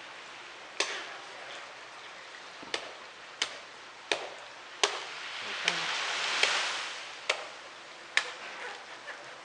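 Sharp, single chops of a machete cutting into a coconut palm's fronds, one about every second, with a swell of rustling noise peaking about six seconds in.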